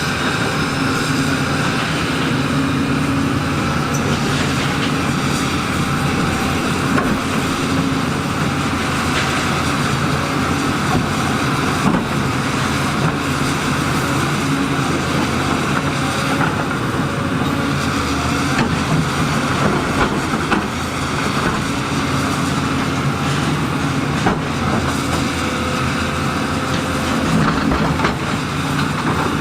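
Heavy earthmoving machinery running: a diesel engine held at a steady pitch, with scattered knocks and clanks of metal and stone.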